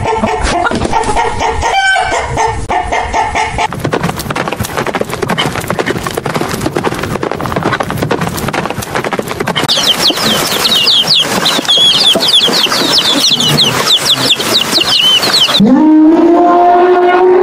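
A sequence of animal sounds: a rooster calling for the first few seconds, then a horse's hoofbeats as a dense run of ticks with high, rapid chirping over them from about halfway, and near the end a loud elephant call that rises in pitch and then holds.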